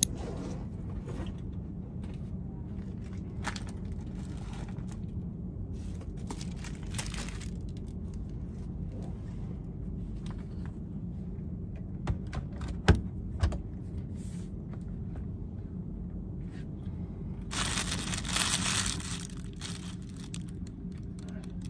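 Steady low hum of office air handling, with hands working on a desk: a few sharp knocks on the desktop about halfway through, then clear plastic bag crinkling for a couple of seconds near the end as a steamed bun is unwrapped.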